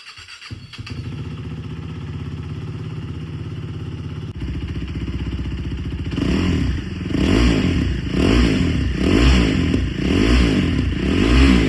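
KTM RC390's single-cylinder engine through its stock exhaust with the dB killer removed. It starts up and idles steadily, the idle rising a little about four seconds in. From about six seconds in the throttle is blipped repeatedly, roughly once a second, a note that is neither very loud nor very quiet.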